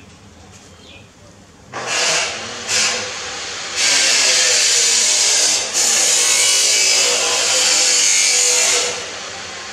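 A loud power tool off-screen, like a saw or grinder, starts with two short bursts about two seconds in. It then runs steadily for about five seconds, with a brief dip in the middle, and eases off near the end.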